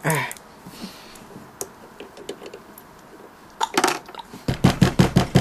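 Rapid knocking on a door: a quick run of about seven sharp knocks starting about four and a half seconds in, with a few fainter taps before it.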